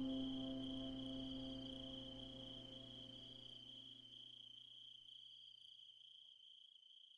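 Steady high-pitched insect trill, cricket-like, over a low sustained drone. Both fade out gradually, the drone dying away first.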